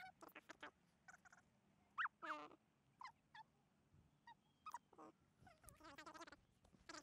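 Faint, short animal calls, many in a row, some with a wavering pitch.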